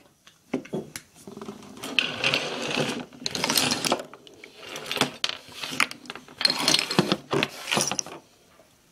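Objects being handled and moved close to the microphone: irregular bursts of clattering, scraping and rustling, each lasting up to about a second and a half.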